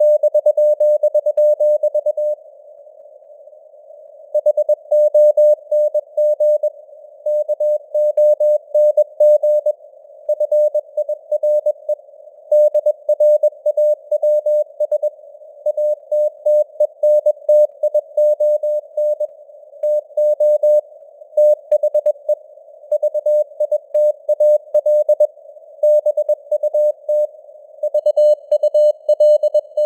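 Morse code (CW) sent at 21 words per minute: a single steady beep keyed on and off in dots and dashes over a narrow band of simulated radio hiss. The sending pauses for about two seconds soon after the start, then carries on.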